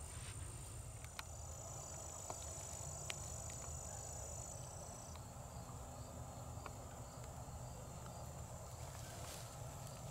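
Faint outdoor background of insects: crickets chirping at an even pace, with a steady high-pitched whine and a few light ticks.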